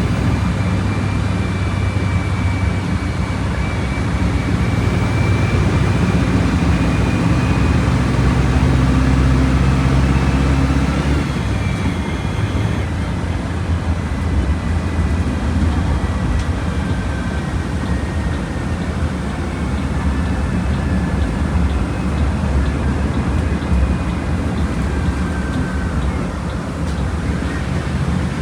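Volkswagen Volksbus 17.230 Euro 6 bus engine running as the bus drives, with a steady low hum. The engine note changes and drops about eleven seconds in.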